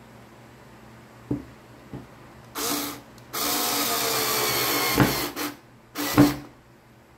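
Cordless electric screwdriver driving a screw into a wooden board: a short burst, then a steady run of nearly two seconds whose pitch drops slightly, then two more short bursts near the end. Two light knocks come before it starts.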